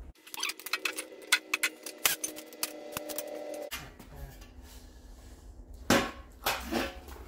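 Tools and hard objects clicking and clattering as they are handled, a rapid run of sharp knocks for about three and a half seconds over a steady hum, then quieter handling with two short louder sounds near the end.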